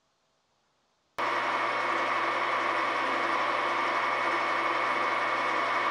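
Near silence, then about a second in a metal lathe cuts in running steadily, a low hum with a high steady whine over a rushing hiss, as it spins brass bar stock that is being polished with P600 sandpaper.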